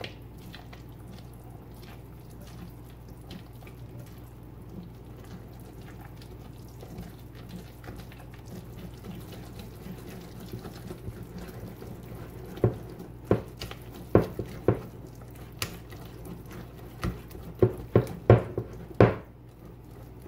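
Wire whisk stirring banana bread batter in a glass mixing bowl: a soft wet churning at first. From about halfway, the whisk's wires knock sharply against the glass, the clinks coming quickly near the end.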